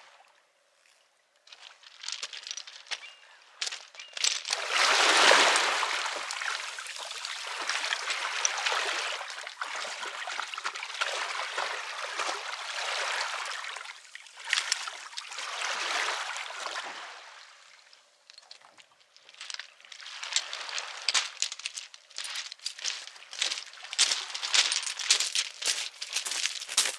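Seawater sloshing and washing in slow swells a few seconds long, with a run of many quick sharp clicks and rattles over the water in the last several seconds.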